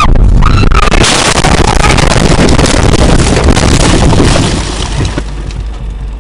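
A car crashing, heard from inside the cabin. A brief scream in the first second gives way to about three seconds of dense banging, scraping and glass breaking as the car goes off the road and the windshield shatters. The noise then drops to a lower, steadier rumble near the end.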